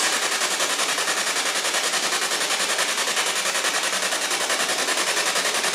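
Steady static hiss with a rapid, even flutter, pulsing many times a second.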